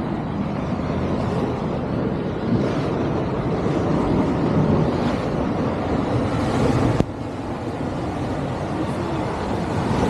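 Sea waves breaking and washing over shoreline rocks, mixed with wind buffeting the microphone: a steady rushing noise. A single sharp click comes about two-thirds of the way through.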